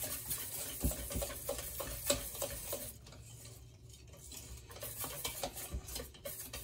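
Wire whisk stirring a thick flour-and-water batter in a stainless steel bowl: irregular light clinks and scrapes of the wires against the metal. The whisking eases off briefly around the middle, then picks up again.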